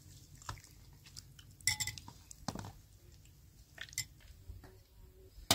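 Scattered clinks and knocks of kitchenware being handled, with sharper clinks about two seconds in and at the end.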